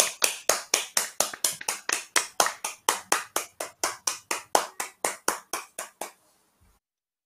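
Steady hand clapping, about four claps a second, heard through a video-call microphone. It stops about six seconds in.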